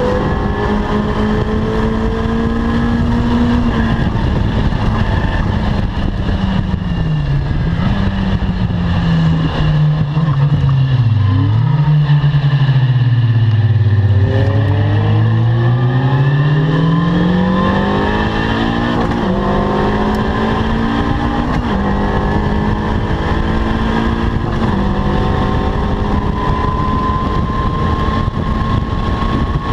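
Caterham R300 four-cylinder engine under hard driving: the revs drop through braking and downshifts, bottom out, then climb under acceleration with upshifts before running on at fairly steady, slowly rising revs.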